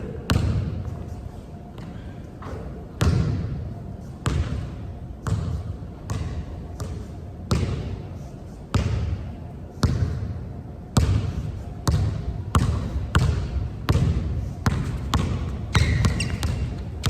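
A basketball being dribbled hard on a court, each bounce a sharp smack followed by a short echo. The bounces are spaced about a second apart at first and quicken to about two a second in the second half.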